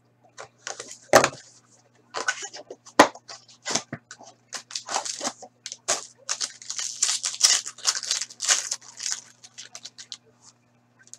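A trading card box being slit open with a small utility knife, then a foil card pack torn and crinkled open: a run of crackling, crinkling tears with sharp clicks about one and three seconds in.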